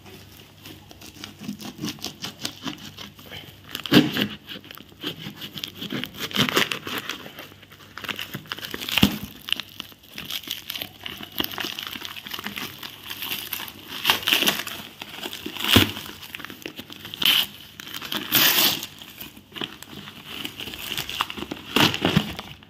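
A parcel being cut and torn open by hand: layers of plastic wrap and newspaper packing crinkling and ripping in irregular bursts.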